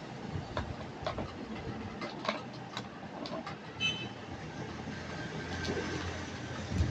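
Scattered clicks and light knocks of hard parts being handled, over a steady low hum, with a brief high squeak about four seconds in.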